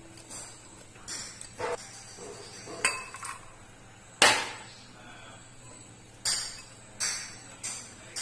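Spoon clinking and knocking against a mixing bowl while stirring the batter: about six separate strikes, the loudest about four seconds in with a short ring.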